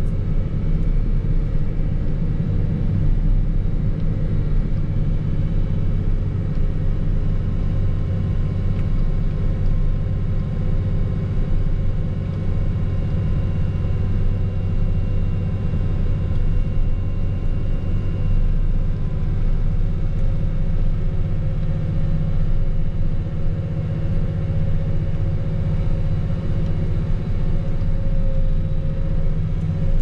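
Engine of a snow-plowing machine running steadily under a low drone, with a thin whine that wavers slightly in pitch.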